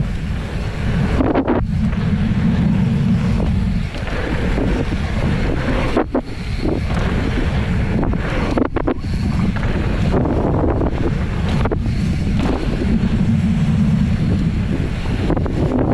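Wind buffeting the microphone of a camera on a mountain bike riding fast down a hardpacked dirt jump trail, with tyre rumble on the dirt and a few sharp knocks, such as the bike landing off jumps.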